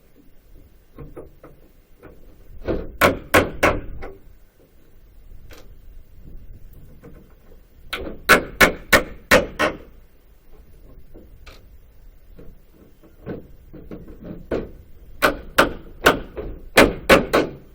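Hammer blows on a wooden pallet to knock the boards apart and free stubborn nails. There are three bursts of sharp strikes, about three to four a second, and the longest and loudest burst comes near the end.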